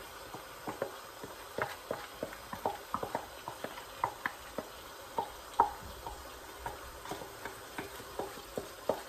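Blended pepper paste being scraped out of a plastic bowl into a cooking pot with a wooden spoon: a scatter of small, irregular knocks and scrapes.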